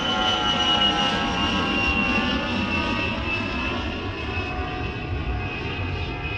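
Jet airliner in flight heard from inside the cabin: a steady rush of engine and air noise with a high engine whine that slowly falls in pitch, easing gradually quieter toward the end.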